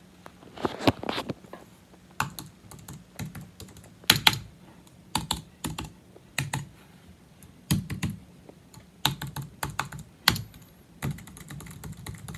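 Typing on a 2007 Apple aluminum keyboard (A1243) with low-profile scissor-switch keys: quick clicks in short irregular bursts with brief pauses, a few strokes louder than the rest.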